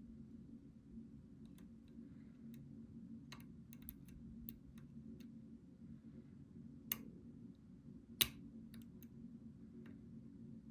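Irregular small clicks of a lock pick and tension wrench working the pins of a pin-tumbler challenge lock, with two sharper clicks about seven and eight seconds in, over a steady low hum.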